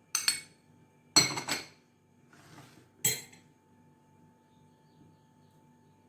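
A spoon clinking against a dish four times, about a second apart, the second clink the loudest, as seeds and herbs are spooned in and mixed.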